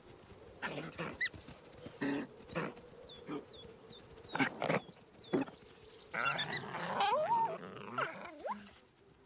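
Golden jackals calling: a run of short whines and yelps, then about six seconds in a longer tangle of growls and squealing whines.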